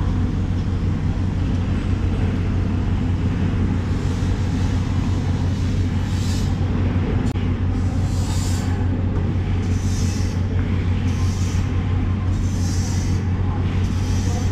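Steady low mechanical hum. From about six seconds in, about six short scraping strokes of a tool drawn along a bluefin tuna loin.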